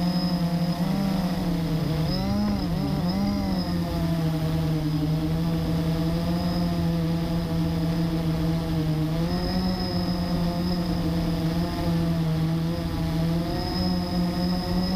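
Blade 350 QX3 quadcopter's motors and propellers running, heard from the GoPro on board. The pitch swoops up and down for a few seconds near the start as it lifts off and climbs, then holds mostly steady with small shifts.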